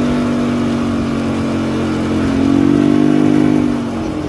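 Small engine of the vehicle towing a plywood box trailer, running steadily; it speeds up a little past the middle, then eases off again near the end.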